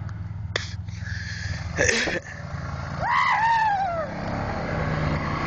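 ATV engine running low and steady. A short loud burst of noise comes just before two seconds in, and about three seconds in a person lets out a drawn-out yell that rises and then falls away in pitch.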